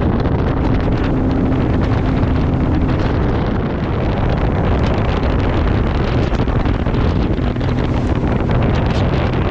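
Heavy wind buffeting the microphone over the steady drone of a bass boat's outboard motor running on the water.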